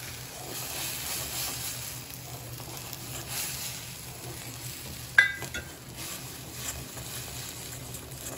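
Palm-jaggery syrup and sesame oil bubbling and sizzling at the boil in an iron kadai as dry ginger powder is tipped in and stirred with a steel ladle. One sharp metallic clink about five seconds in.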